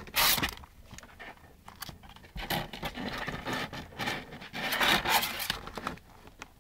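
Scraping and rubbing on cardboard as a hand and kittens shuffle about in a box, in a few noisy bursts with the loudest right at the start.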